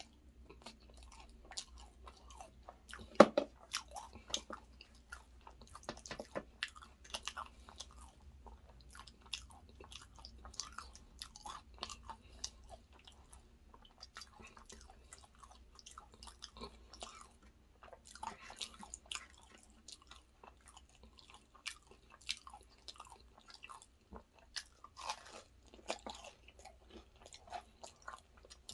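Close-miked chewing and crunching of a fried vegetable samosa: many small crisp clicks and wet mouth sounds, with one loud crunching bite about three seconds in.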